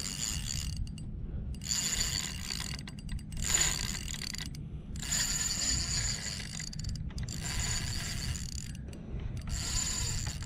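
Spinning reel's gears whirring as the handle is cranked in spells with short pauses, reeling in a hooked permit.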